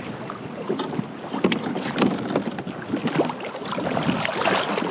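Water splashing and slapping against a plastic fishing kayak's hull as a large roosterfish thrashes at the surface alongside, in irregular short splashes over a steady wash of sea and wind.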